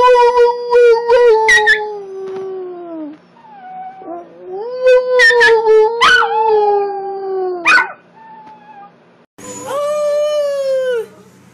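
Long-haired dachshund puppy howling: two long howls, each sagging in pitch at the end and breaking into short, higher yelps. Near the end, after a cut, another puppy howls once, rising slightly and then falling in pitch.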